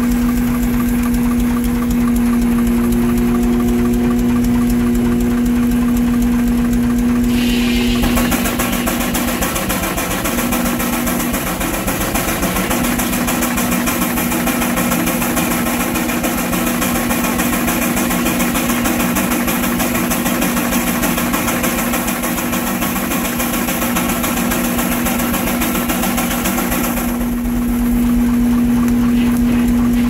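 Frick 8x10 steam traction engine running steadily while driving a sawmill, with a steady hum and fast, even beats. From about eight seconds in until near the end, a loud rushing noise rises over it.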